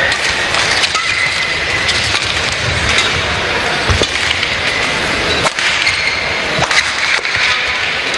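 Badminton rally: sharp cracks of rackets striking the shuttlecock about once a second, with short squeaks of shoes on the court over a steady arena noise.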